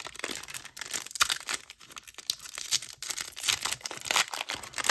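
Foil wrapper of a baseball card pack being torn open and crinkled by hand, an irregular run of crackles and rips.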